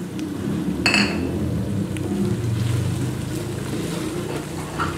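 Wooden spoon stirring and scraping thick frying spice paste in an aluminium pot, with a low rough rumble underneath and a short ringing clink about a second in.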